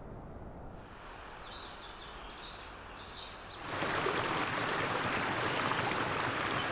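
Faint outdoor ambience with small birds chirping, then, about three and a half seconds in, a shallow mountain stream starts up suddenly, rushing over rocks and small cascades. A few high bird calls sound over the water.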